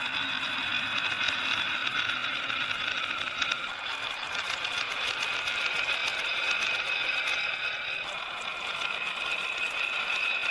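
Marbles rolling down a wooden marble-run track: a steady rolling rumble with scattered light clicks and clatters as they strike the track pieces.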